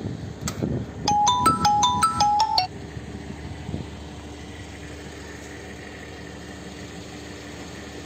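A mobile phone's ringtone jingle: about eight quick bright notes alternating between two pitches, starting about a second in and stopping after about a second and a half. Afterwards the low steady hum of an idling vehicle engine carries on.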